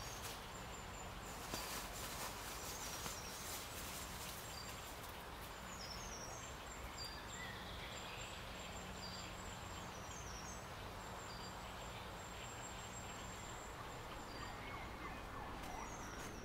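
Small songbirds calling with short, high chirps and little trills, repeated on and off, over a steady background hiss.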